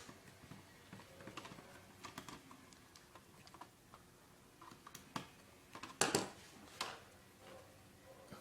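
Light, irregular clicks and taps of a small screwdriver working screws out of a laptop's internal frame, with a few sharper clicks about five to seven seconds in.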